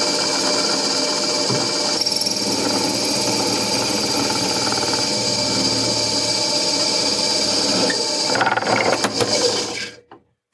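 A drill press running and cutting a hole through an aluminium timing belt pulley with coolant, a steady motor whine with several held tones. Near the end the sound turns rougher and rattlier as the pulley's thin ring breaks off and the part catches on the bit, then the drill stops just before the end.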